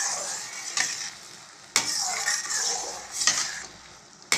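Metal ladle stirring thick, bubbling semolina kesari in a steel kadai: scraping strokes about every second and a half, with two sharp clinks of the ladle against the pan, about halfway through and at the very end.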